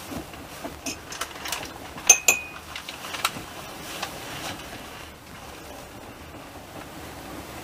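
Tableware clinking: a run of light clicks and knocks, loudest as two sharp clinks about two seconds in, the second ringing briefly. Under it runs the steady noise of the moving train carriage.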